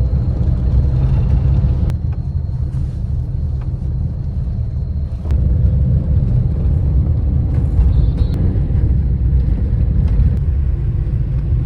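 Car on the move, heard as a steady, heavy low rumble of engine and road noise that gets louder about five seconds in.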